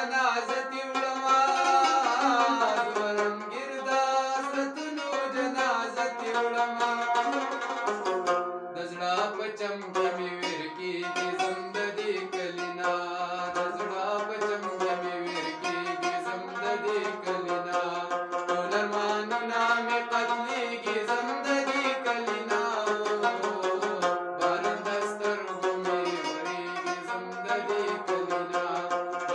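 A male voice sings a Pashto ghazal in a bending, ornamented melody, accompanied by a plucked Afghan rabab.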